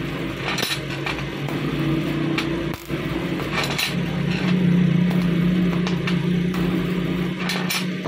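TIG (argon) welder running as it tack-welds knife blanks: a steady electrical hum, louder in the second half, with short sharp crackles.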